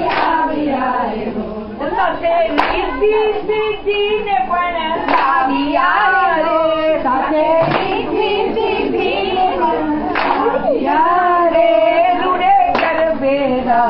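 Women singing a garba song together, with the dancers' group hand clap landing sharply about every two and a half seconds in time with the song.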